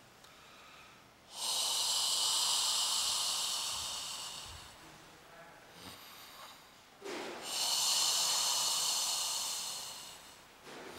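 A person's two long, hissing out-breaths, each about three seconds, with a quieter pause between: slow, paced exhaling during deep abdominal massage.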